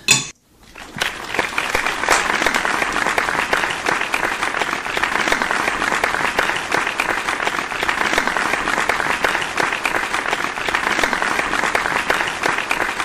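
Steady applause, a dense patter of many clapping hands. It starts just after the opening and fades out near the end.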